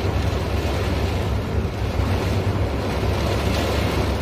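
Storm wind buffeting a phone's microphone with a steady low rumble, over an even rushing hiss of heavy rain and floodwater.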